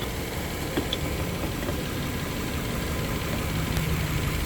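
2012 Nissan Frontier's engine idling steadily, with a faint click about a second in.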